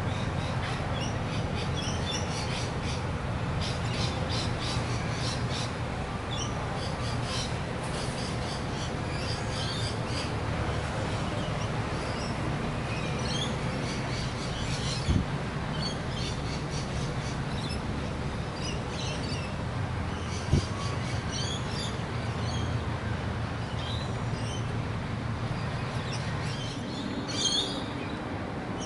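Rainbow lorikeets chirping in a tree, many short high chirps that grow busier near the end, over a steady low rumble. Two sharp knocks stand out, about halfway through and again some five seconds later.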